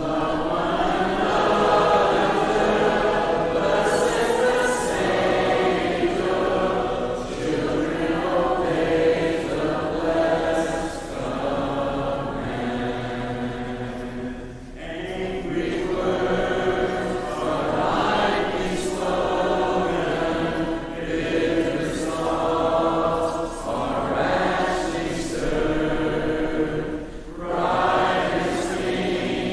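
Congregation singing a hymn together in unaccompanied four-part harmony, in sustained phrases with brief breaths between lines.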